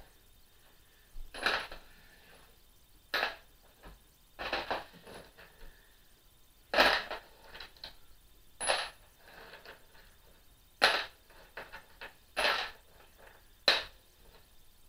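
Small loose bolts, nuts and washers clinking as they are dropped by hand into the bottom of a toolbox, about eight sharp clinks at uneven intervals.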